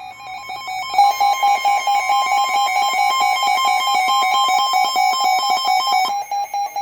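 Weather alert radio receiver sounding its alarm: a loud, rapid electronic beeping that alternates between two pitches, then carries on as a single repeated beep, signalling that a warning has been received.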